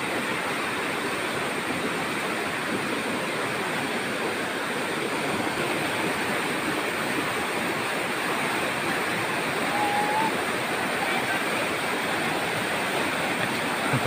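Fast, muddy river rushing steadily beneath the bridge: a loud, even wash of flowing water.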